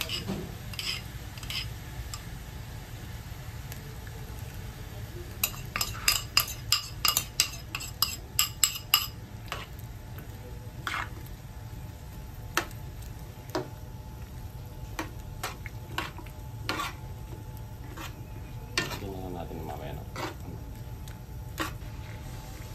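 A metal spoon clinks and taps against a bowl and a frying pan while sauce is spooned onto rice cakes in the pan. A rapid run of clinks comes about six seconds in, with scattered single taps after it, over a low steady sizzle from the pan.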